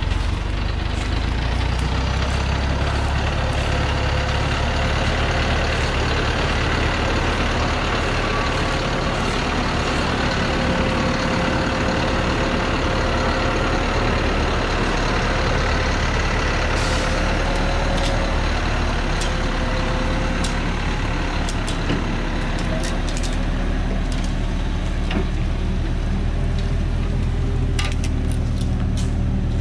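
Diesel engine of a truck loaded with acacia logs running steadily as it crawls along a dirt forest track. Scattered sharp clicks and snaps come in near the end.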